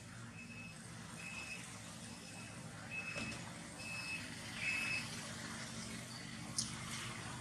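Vehicle reversing beeper sounding a steady high-pitched beep about once a second over a low engine hum, with a sharp click near the end.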